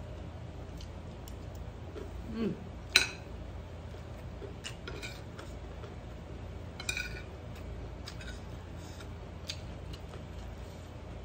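Metal spoon scraping and clinking against a ceramic plate of fried rice: a few scattered sharp clinks, the loudest about three seconds in and another near seven seconds, over a steady low hum.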